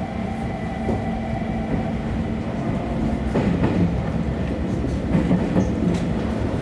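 JR Kyushu YC1 series hybrid diesel-electric railcar running out of a station, heard from the driver's cab. There is a steady hum from the drive. From about three seconds in the wheels clack over the points.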